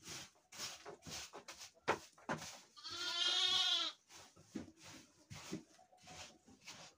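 A sheep bleats once, a long wavering bleat of about a second starting about three seconds in. Around it come short, repeated scraping and rustling strokes of sheep-pen litter being swept up.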